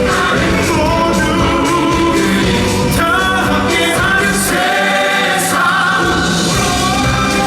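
A musical theatre number: singing voices, possibly an ensemble, held over full orchestral accompaniment.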